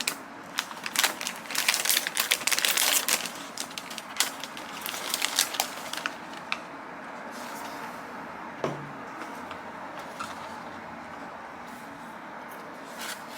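Rapid clicking and rattling of small hard objects being handled, dying down about six seconds in to a faint steady hiss with a few soft taps.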